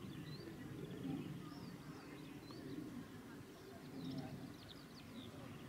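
Faint birdsong: scattered short high chirps and trills over a low, uneven murmur.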